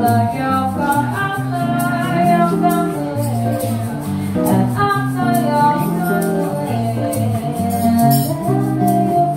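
Acoustic guitar playing chords, with a shaker rattling in a steady rhythm and a woman singing along.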